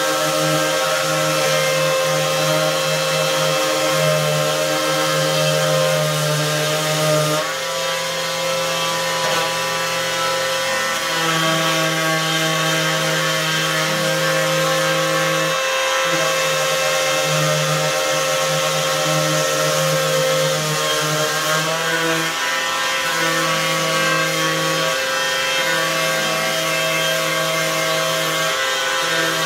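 Cordless DeWalt orbital sander running steadily as it sands the raised letters of a painted wooden sign, abrasive rubbing over wood; the pitch of its motor hum shifts slightly several times.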